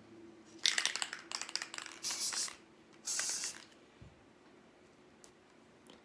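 Loctite aerosol spray can being sprayed: a spluttering run of short spurts starting about half a second in, then two steady hisses, the last ending around three and a half seconds in.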